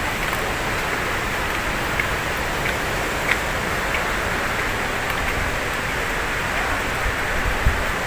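Steady rushing noise of falling water from Busra Waterfall, with a brief knock about three seconds in and another near the end.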